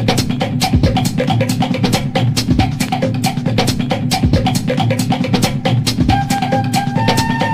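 Background music with a steady, fast drum beat; a held high tone joins about six seconds in.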